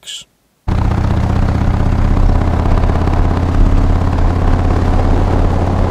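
Harley-Davidson Street Bob's V-twin engine idling steadily. It cuts in abruptly under a second in.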